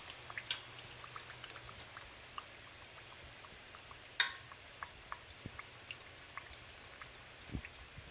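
Hot corn oil faintly crackling, with scattered small pops over a steady hiss, as potato bhajias fry and drain. A sharper click about four seconds in.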